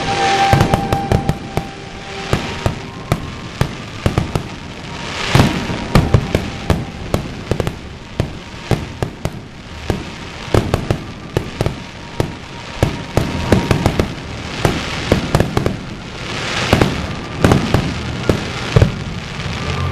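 Aerial fireworks bursting in rapid, irregular succession: many sharp bangs, broken by a few longer swells of crackling hiss.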